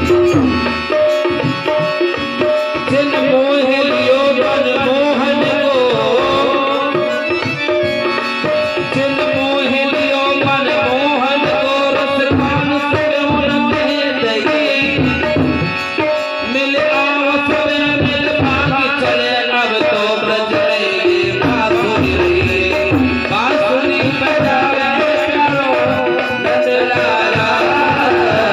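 Indian devotional song (bhajan) music: tabla keeps a steady beat under a wavering, ornamented melody line.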